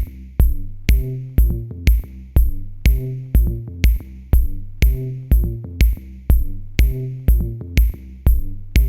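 Electronic background music with a steady drum-machine beat, about two beats a second, over a bass line.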